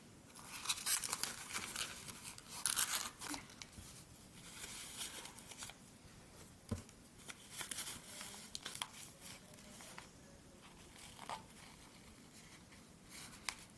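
Toilet paper being torn and crumpled by hand, rustling in irregular bursts that are busiest in the first half, as it is stuffed into a clear-tape pouch.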